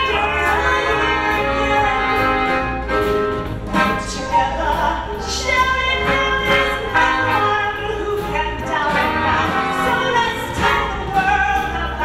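A woman singing into a microphone over a live band with brass, including a French horn, playing a show tune.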